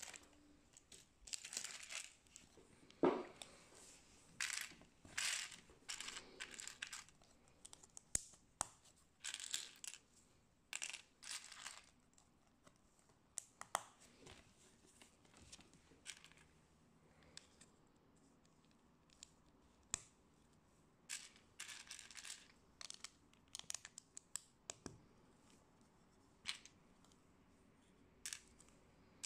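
Small plastic building bricks being sifted from a loose pile and snapped together on a baseplate: irregular light clicks, clatters and short scrapes, with a sharper click about three seconds in.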